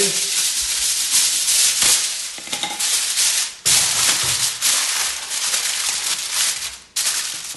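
Aluminium foil crinkling loudly as a sheet is unrolled and then pressed and crimped over the rim of a glass baking dish, with brief pauses about halfway through and near the end.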